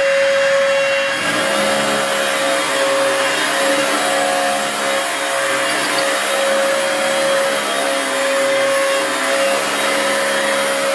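Vacuum cleaner running steadily, its motor giving a constant whine over the rush of air.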